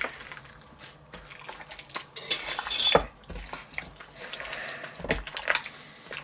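Meat chunks being mixed by hand through a thick yogurt marinade in a stainless steel bowl, with irregular knocks and clinks of the metal bowl, the loudest about three and five seconds in.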